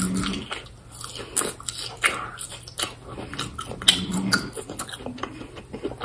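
Close-up chewing of a lettuce leaf wrapped around grilled chicken: many small crisp crunches and wet mouth clicks, with a brief closed-mouth hum at the start and again about four seconds in.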